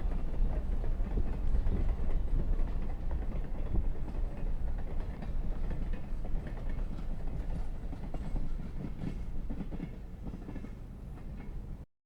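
Train running along the track: a low rumble with faint wheel clatter, growing gradually fainter, then cut off abruptly near the end.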